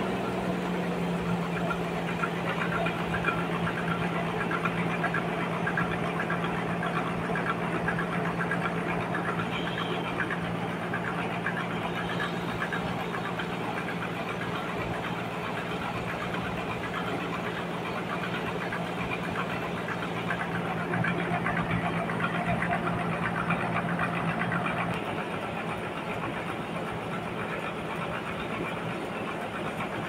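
Band sawmill machinery running steadily, a continuous mechanical hum with a steady low tone that fades out about 25 seconds in.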